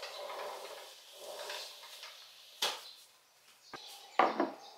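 A sliding kitchen window being slid open with a rolling scrape, then a couple of sharp clicks, and near the end a ceramic mug set down on a wooden counter with a solid knock, the loudest sound.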